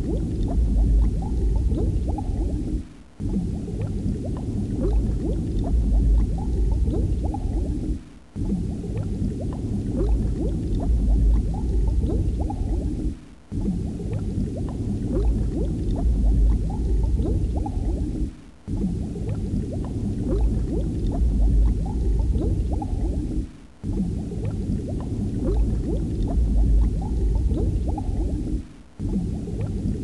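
Muffled bubbling and gurgling water, a loop of about five seconds that repeats with a brief dip in level between repeats.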